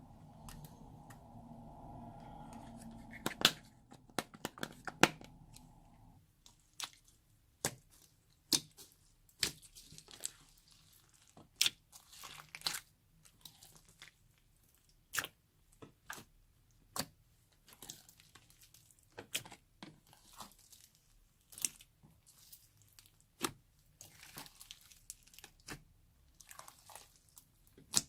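Slime being pressed, folded and stretched by hand, giving sharp crackling pops and snaps about once a second. A low steady hum runs under the first few seconds and stops about six seconds in.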